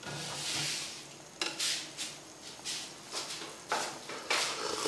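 Metal ladle stirring through a pot of simmering soup, in a series of short strokes over a steady hiss of bubbling.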